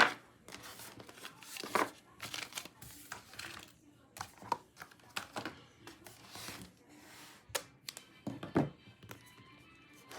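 Album packaging being torn open and crinkled by hand: a string of short rustles and tears, with a sharp loud one at the very start.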